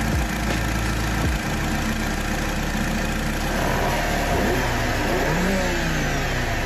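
BMW 118i's N46 2.0-litre four-cylinder petrol engine idling, then revved up and let fall back down in the second half.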